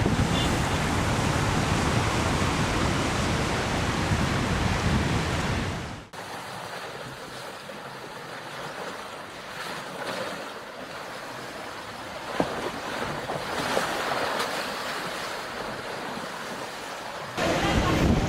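Ocean waves breaking with wind buffeting the microphone, loud with a deep rumble for about six seconds. It then cuts abruptly to quieter surf, and the loud wind and waves cut back in near the end.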